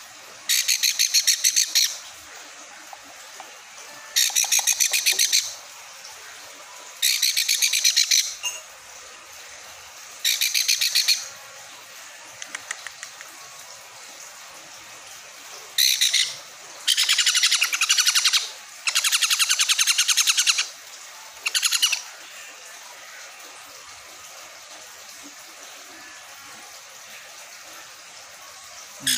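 Baby sun conure chick giving rapid, pulsing food-begging calls while being syringe-fed: about eight bursts of half a second to a second and a half each, in quick succession over the first twenty-odd seconds, then it falls quiet.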